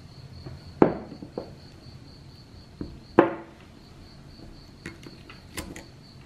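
Wooden chopsticks knocking and scraping against a ceramic bowl while pulling apart a fried crab ball: two sharp clinks with a short ring, about a second in and about three seconds in, with lighter taps after. A steady high trill runs underneath.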